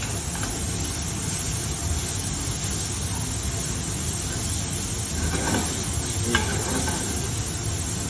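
Shaved steak sizzling steadily in a hot sauté pan while it is broken up and stirred with a utensil, with a few light taps and scrapes against the pan.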